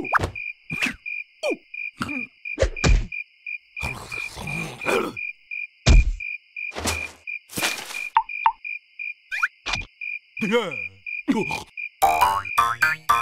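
Cartoon soundtrack: a steady, rapidly pulsing cricket chirping ambience, with short sound effects and comic character noises over it: quick falling squeaky glides, swishes and a few thumps.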